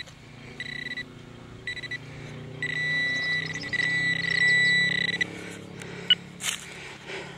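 XP Deus metal detector sounding its target tone as the coil passes over a buried target: two short beeps, then one long steady tone of about two and a half seconds.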